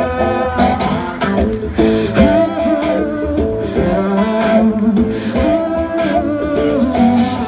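Live acoustic guitar playing with a voice singing, loud and continuous, at the start of a song.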